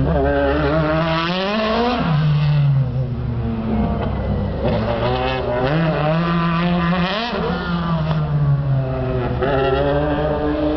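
Lexus SC430 Super GT race car's naturally aspirated 4.3-litre V8 revving hard and easing off in turn as it is driven through tight corners, its pitch climbing and then dropping sharply about two seconds in and again about seven seconds in. Tyres scrub and squeal during the climbs.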